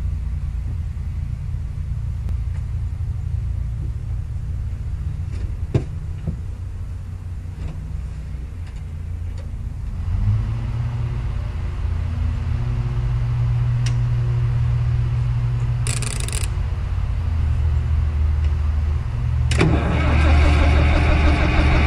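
Caterpillar D4 7U crawler tractor's engine running with a low rumble. Its note changes about ten seconds in, and it grows louder and brighter near the end.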